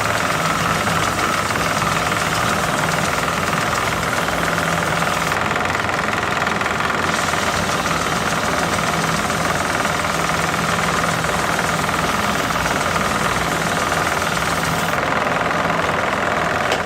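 Homemade belt grinder, a 2-inch belt driven by a converted disc sander's motor, running steadily with a constant motor hum and whir of the belt.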